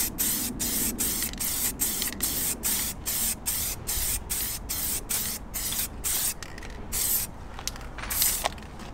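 Halfords gloss black aerosol spray paint can hissing in short bursts about three a second while a coat is laid onto a car wheel. After about six seconds the bursts become longer and fewer.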